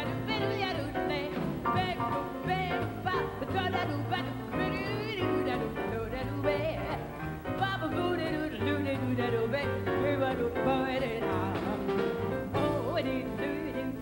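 A female jazz vocalist singing live into a microphone, her voice weaving in quick wavering runs, backed by piano and plucked double bass.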